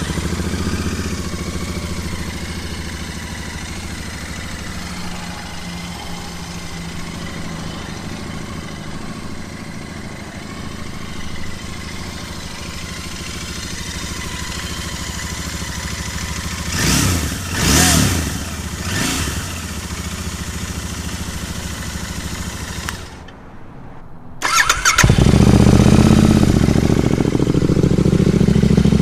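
Royal Enfield Interceptor 650 parallel-twin idling just after starting, blipped three times about two-thirds of the way through, then shut off. A second or so later a second Interceptor 650 starts and idles louder; one bike runs the stock exhaust, the other S&S tapered cone slip-ons.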